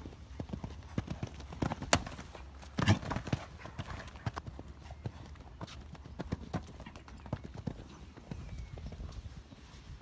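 Hoofbeats of a horse cantering on sand arena footing, a fast, uneven run of dull thuds with the loudest strikes about two and three seconds in, growing fainter near the end.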